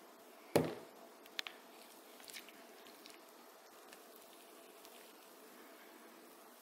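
One thump about half a second in, then faint rustling and a few light ticks as a small plastic pony toy is rubbed dry in a cloth towel.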